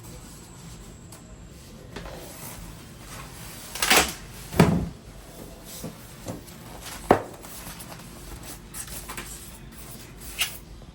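Knocks and thumps of something being handled, a few seconds apart: two louder thumps about four seconds in, a sharp knock about seven seconds in, and a lighter one near the end.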